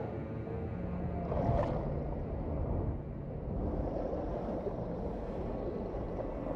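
Underwater ambience from a documentary soundtrack: a steady low rushing of water, with a whoosh that swells and fades about a second and a half in.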